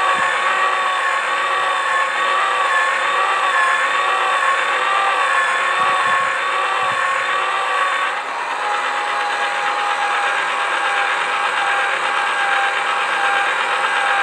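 Toy pottery wheel's electric motor running with a steady whine, while hands collar the clay on the spinning wheel head. The pitch wavers for the first half, then about eight seconds in it settles into a lower, steadier tone.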